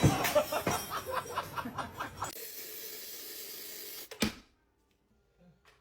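Laughter, then a steady high hiss like steam or spray for almost two seconds that cuts off suddenly. A single sharp click follows, then dead silence.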